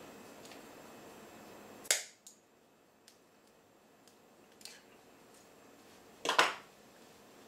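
Handling of tape and a hand hole punch on a tabletop: a sharp snap about two seconds in, a few faint ticks, then a louder double clack a little after six seconds as the punch is picked up and used.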